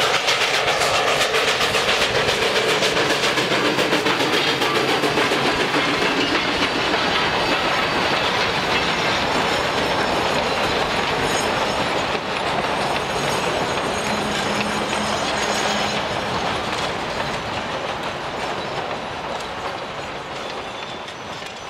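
Durango and Silverton narrow-gauge mixed train running on the rails, its wheels clacking steadily over the rail joints. It grows quieter over the last few seconds.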